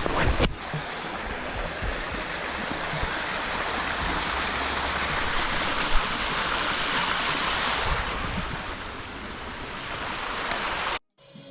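Steady rushing water of a waterfall, fullest in the middle and easing a little near the end, with a short bump right at the start; it cuts off suddenly just before the end.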